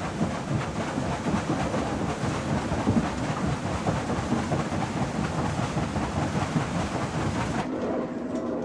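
Water rushing and splashing through a turning wooden waterwheel, with a dense, steady low rumble. About a second before the end the sound changes abruptly to a duller, quieter noise with a faint steady hum.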